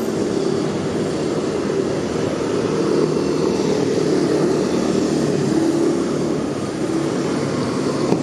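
Steady street traffic noise: vehicle engines running close by, with a continuous hum that drifts in pitch.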